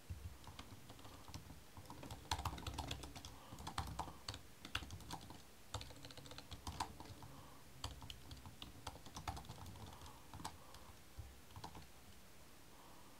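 Typing on a computer keyboard: irregular bursts of quick keystrokes with short pauses between them.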